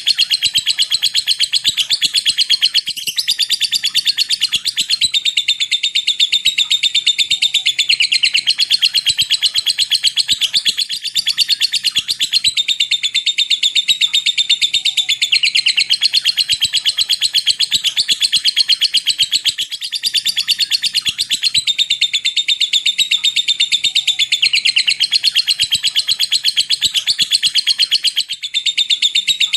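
A lovebird chattering in a long, unbroken high-pitched trill of very rapid notes, the drawn-out 'ngekek panjang' with clicking 'ngetik' notes that lovebird keepers train for. It breaks off only briefly about every eight or nine seconds and then starts again.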